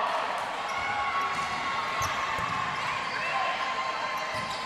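Busy indoor hall din: overlapping background chatter with a few scattered knocks.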